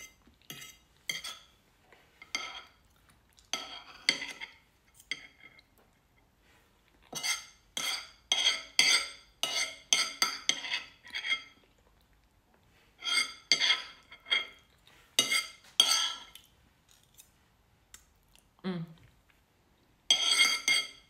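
Metal fork and knife scraping and clinking on a plate in clusters of short, ringing strokes with short pauses between them, scooping up the last scraps of food.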